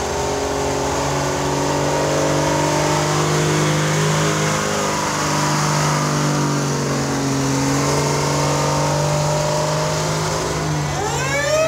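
Antique fire truck engines running steadily, their pitch shifting a little as the trucks move. Near the end, a fire truck siren starts winding up, rising steeply in pitch.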